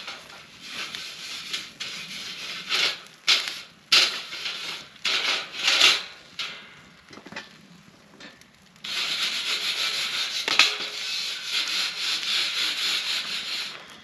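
Metal spatula scraping a wire campfire grill grate, in short irregular strokes, then steadily for several seconds from about the middle on.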